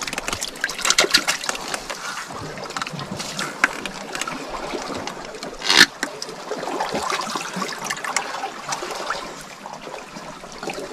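Water lapping and splashing, with many small clicks and crackles and one louder sudden splash-like sound about six seconds in.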